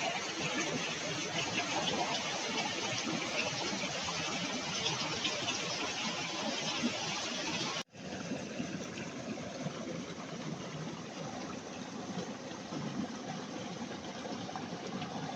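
Fast river water rushing in a steady, full roar of noise. It breaks off abruptly about eight seconds in and resumes, sounding duller after the break.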